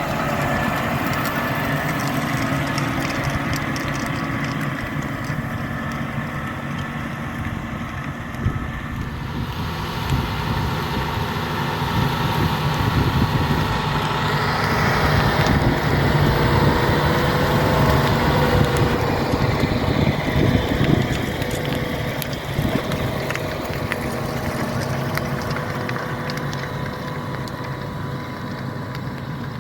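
John Deere 6R 250 tractor's diesel engine running steadily under load while it pulls a Kverneland LO85 plough through stubble. It grows louder through the middle and eases off near the end.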